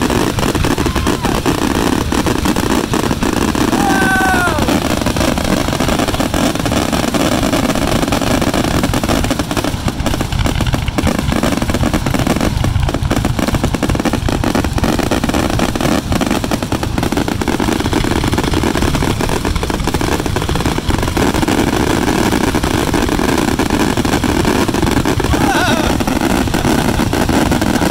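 Fireworks finale barrage: many shells bursting at once in a continuous, dense run of booms and crackles with no breaks. A brief falling whistle about four seconds in.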